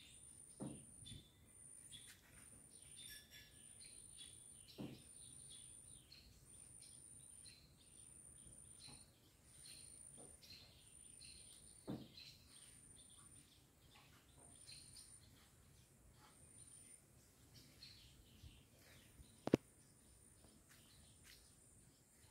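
Faint chirps and calls of small birds, with a thin, very high note repeating about once a second through most of it. Four short knocks break in, the loudest about 19 seconds in.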